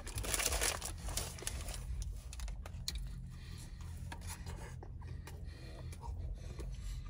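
Paper fast-food wrapper crinkling and rustling in the hands, loudest in about the first second, then small scattered crackles as he eats.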